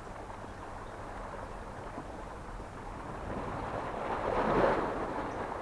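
Seashore ambience with wind on the microphone and water, and a swell of rushing noise that builds about three seconds in, peaks near the end and falls away, like a wave washing in.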